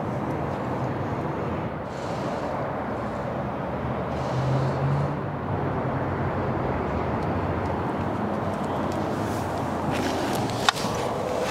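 Steady outdoor background hum and hiss, which swells briefly about four to five seconds in with a low tone, like a vehicle going by. A single sharp click comes near the end.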